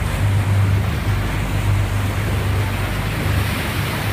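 Boat engine running with a steady low drone, over a constant rush of water and wind.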